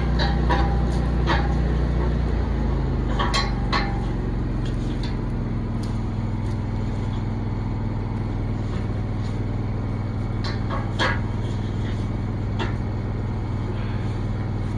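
An engine running steadily, its pitch settling lower about two and a half seconds in, with a few metallic knocks and clanks over it, the loudest near the start and about eleven seconds in.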